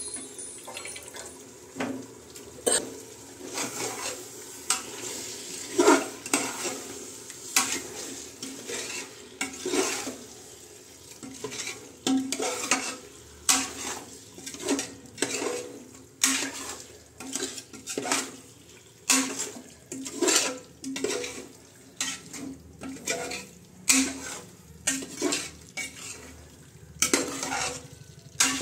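Steel slotted spoon scraping and clinking against the inside of an aluminium pressure cooker as chicken pieces are stirred, in irregular strokes about one a second.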